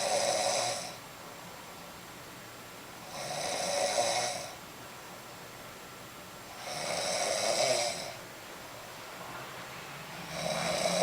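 A woman snoring loudly in her sleep, one snore about every three and a half seconds, each lasting a second or so.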